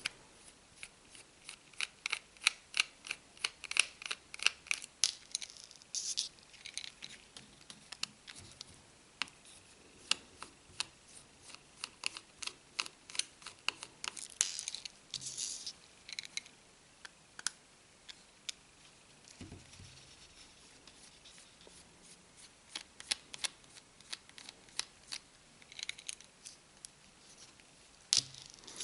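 Irregular light clicks and short scraping of a small screwdriver working tiny screws out of a phone's plastic back frame.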